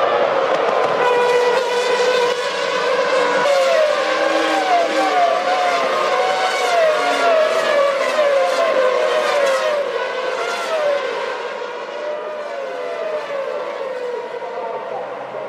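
Formula One cars' V10 engines at full throttle, several cars in turn. Each engine's pitch rises and drops back again and again as it shifts up through the gears. The sound thins out and gets a little quieter in the last few seconds.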